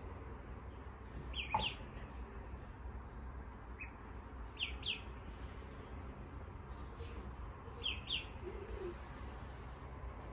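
Ducklings peeping: a few short, high peeps, mostly in quick pairs.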